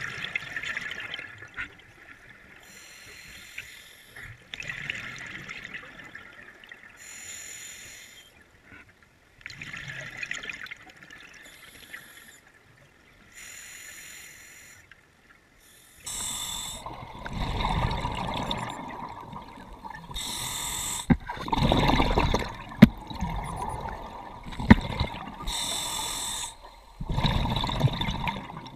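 Underwater breathing through a scuba regulator, with bursts of exhaled bubbles gurgling past the microphone every few seconds. The bursts grow louder and fuller about halfway through.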